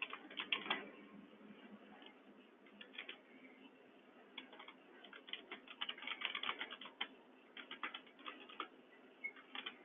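Faint clicking and tapping of a computer keyboard and mouse, single clicks at first, then quick runs of keystrokes in the second half.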